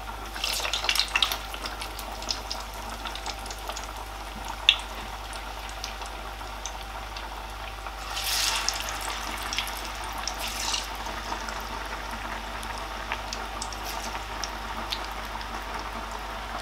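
Flattened plantain pieces deep-frying a second time in a pot of hot oil, which bubbles and crackles steadily. The sizzle surges loudly as fresh pieces are dropped in, about a second in and again around eight seconds in. A single sharp tap comes a little before five seconds in.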